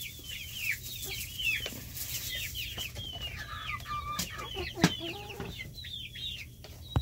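A flock of chickens calling constantly: many short, high chirps that each drop in pitch, overlapping from several birds. A single sharp knock about five seconds in stands out above them.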